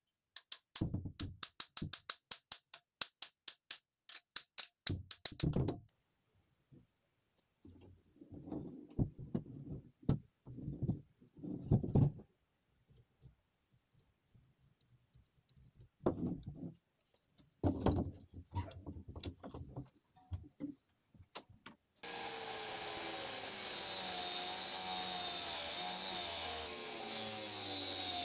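Rapid clicks and knocks as a small cast-iron vise is handled, then scattered thuds. About three quarters of the way through, an angle grinder with a cutting disc starts up and runs steadily, its pitch wavering as it is brought down onto the cast-iron vise body.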